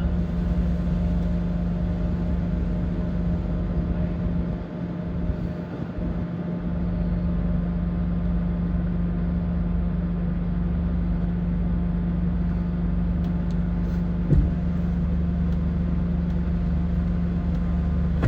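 Car running, heard from inside the cabin through a dashcam: a steady engine hum over a low rumble, with a single knock about fourteen seconds in.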